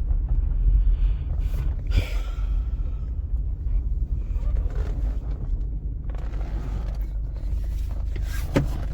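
1999 Subaru Outback's 2.5-litre flat-four (boxer) engine idling with a steady low rumble, running on a freshly replaced fuel filter. A couple of light knocks, about two seconds in and near the end.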